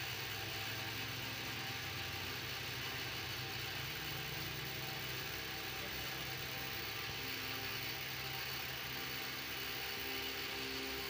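Steady low mechanical hum over a constant hiss.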